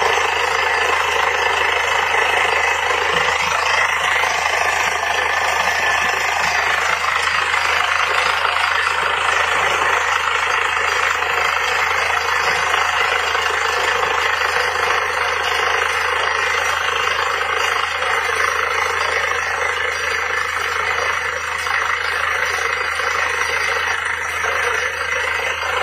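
Truck-mounted borewell drilling rig drilling: a loud, steady rush of air and rock dust blowing out of the bore over the rig's running engine.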